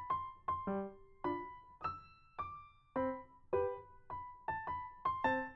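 Background music: a slow piano or electric-piano melody of single struck notes, about two a second, each fading out.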